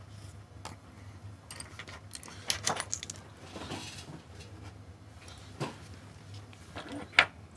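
Light metallic clicks and taps of small watch parts and a metal mesh parts basket being handled and set down on a bench mat, a few scattered strikes with pauses between.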